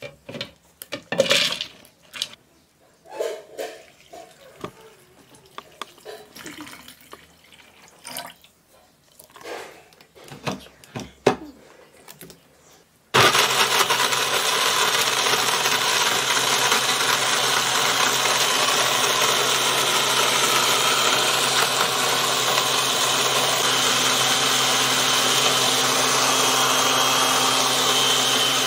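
Scattered knocks and clicks, then about halfway through an electric countertop blender starts suddenly and runs steadily, a loud whir with a low hum, puréeing carrot, ginger and pumpkin seeds with water.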